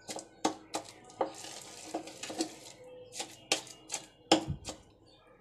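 A wooden pestle pounding in a wooden mortar, mashing Indian olives (jolpai) into a wet paste. About a dozen irregular knocks come two or three a second, and the loudest and deepest comes near the end.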